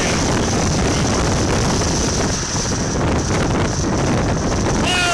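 Tornado wind buffeting a phone microphone: a loud, steady rushing noise. A single falling tone sounds near the end.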